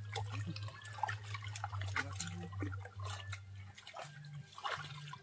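Water splashing and dripping as wet cast nets are gathered and lifted in shallow water, heard as scattered small splashes and drips. A low steady hum runs underneath and stops about three-quarters of the way through.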